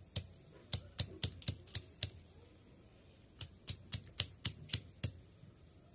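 Cylindrical stone pestle striking green chillies on a sil grinding stone, crushing them for chutney: sharp knocks about three a second, with a short break near the middle.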